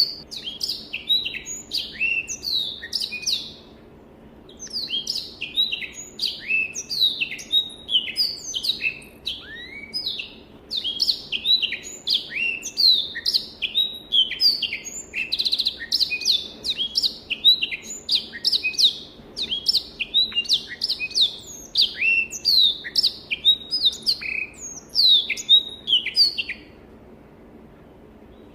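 Black-throated canary (Crithagra atrogularis) singing long, fast phrases of quick, high, downward-slurred notes. There is a pause about three and a half seconds in, and the song stops near the end.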